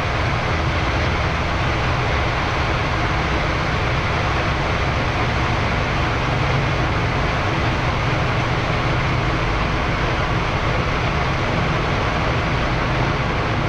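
Boeing 787-10 on its takeoff roll heard from the flight deck: a loud, steady, deep rumble and rush of engines at takeoff thrust and the airliner racing down the runway toward rotation speed.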